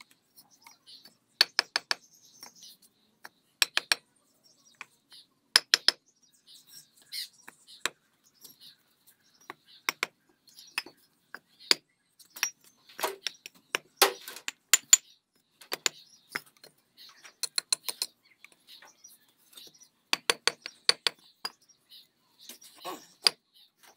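A mason's hammer and trowel tapping and clinking on fired clay bricks as they are bedded into wet mortar: short clusters of sharp taps every couple of seconds.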